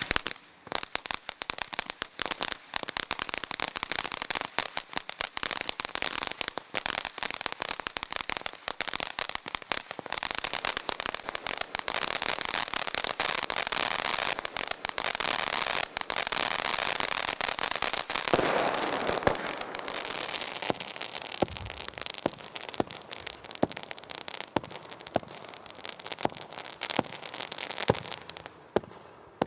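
СК061061 'New Year's Night' firework battery (cake) firing: a dense, rapid stream of shots and crackling bursts, swelling louder at around eighteen seconds, then thinning to separate sharp bangs every second or so.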